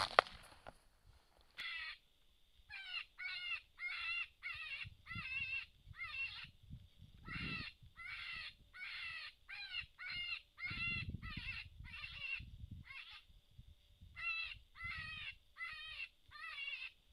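A long run of short, high, yelping distress cries, repeated about twice a second, pausing briefly twice. Low rumbles sound under it about seven and eleven seconds in.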